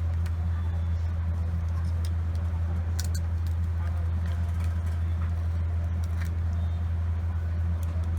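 A steady low hum, with a few faint sharp clicks now and then.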